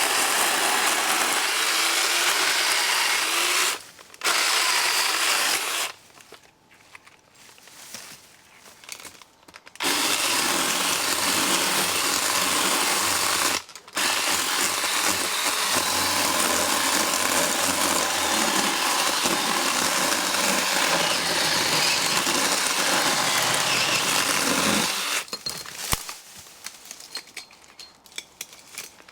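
Black & Decker Alligator cordless lopper-chainsaw running in bursts, its electric motor and chain cutting through brush and branches. It runs for about four seconds, stops briefly, and runs again for a moment. After a pause with only small rustling sounds, it runs steadily for about fifteen seconds, with one short break, before stopping.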